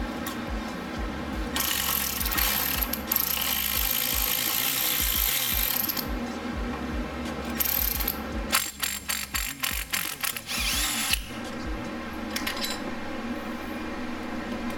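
A cordless electric ratchet whirs for a few seconds as it spins a motor mount nut off, with a short second run. It is followed by a couple of seconds of quick ratchet clicks.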